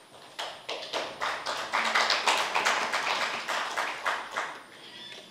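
Audience applauding: a dense patter of clapping that starts about half a second in, swells, and dies away near the end.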